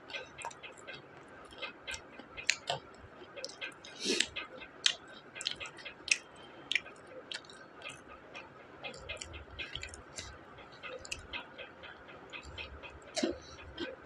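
Close, crunchy chewing of fried onion pakoda, with irregular crunches and mouth clicks and a few louder crunches around four seconds in and near the end.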